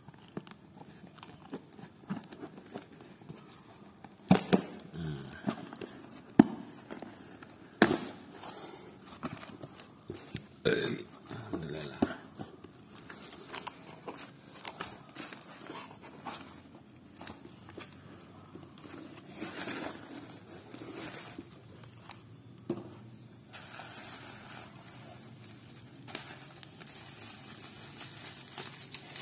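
A cardboard shipping box being opened and unpacked by hand: sharp cracks and knocks of cardboard and tape for the first twelve seconds, then the rustle and crinkle of crumpled newspaper packing and bubble wrap being pulled out.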